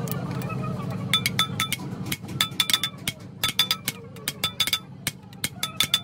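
Small hammer tapping on the metal of a truck clutch disc: quick, sharp metallic taps with a short ring, starting about a second in and coming in clusters of a few taps.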